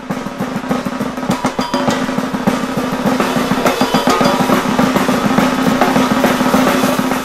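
Intro music driven by fast drums and snare rolls, the strikes coming thick and rapid over a low held tone.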